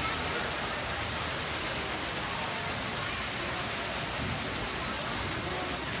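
Streams of water falling from a ceiling-mounted ring fountain into a basin below: a steady splashing rush.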